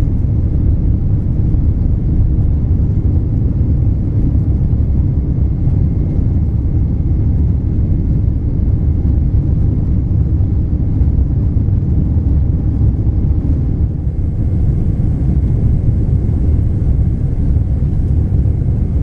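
Boeing 777 cabin noise during the climb after takeoff: the jet engines and rushing air make a loud, steady low rumble heard from inside the cabin. A faint high hiss joins about fourteen seconds in.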